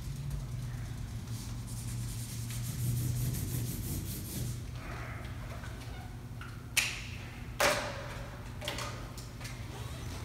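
Felt-tip marker pen rubbing across paper in strokes, then two sharp clicks a little under a second apart about two-thirds of the way through, over a steady low hum.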